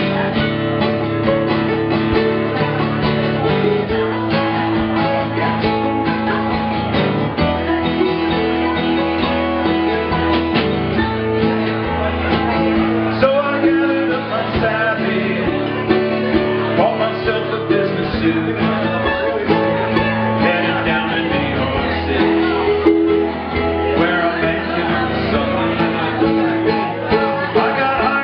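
Small acoustic band playing live: a strummed acoustic guitar with a mandolin and a drum kit, playing steadily throughout.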